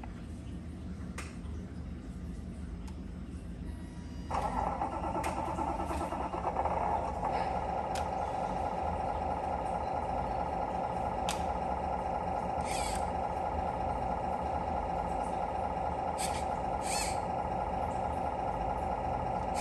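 Electronic truck-engine sound effect from a 1/24 scale RC truck, starting suddenly about four seconds in and then running steadily, with a few short hisses like air-brake releases.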